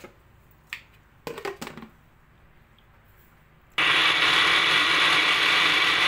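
A countertop blender starts abruptly about four seconds in and runs at a steady speed, puréeing sliced onions and tomatoes. It follows a few short knocks in the first two seconds.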